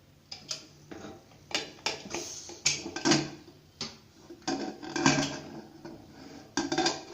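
Pressure cooker lid being opened after cooking: a run of irregular metal clanks and clinks, about a dozen, loudest around three and five seconds in.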